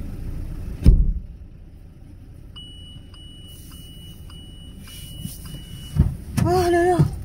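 Car engine running, then a loud thump about a second in after which the engine noise is gone. A faint steady high tone follows, with faint regular ticks about two a second, and then more thumps and a short pitched sound near the end.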